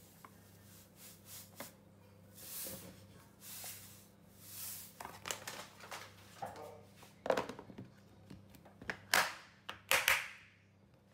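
Salt pouring from a bag over lemon slices in a plastic container, hissing in a few short pours, then a plastic lid pressed onto the container with several sharp snaps and knocks near the end, the loudest sounds.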